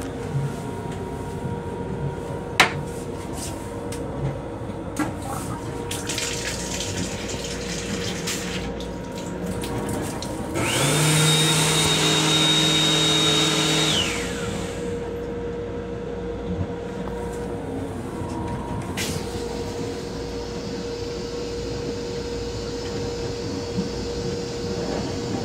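Steady hum of a moving M7 railcar heard inside its restroom, with a sharp click about two and a half seconds in. Midway, the restroom sink's faucet runs for about three and a half seconds: water splashing into the basin over a motor whine that rises quickly, holds steady, then falls away as the flow stops.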